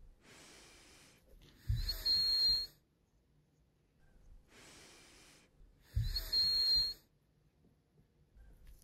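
Slow, even breathing close to the microphone: a faint breath in, then a louder breath out with a thin whistle through it, twice, about four seconds apart.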